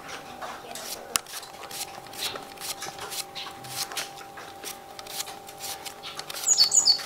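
A kitchen knife slicing a fresh Japanese cucumber held in the hand, each cut a short crisp snick, about two a second, as slices drop into a clay bowl of bean sprouts. Near the end a few short high-pitched chirps ring out louder than the cutting.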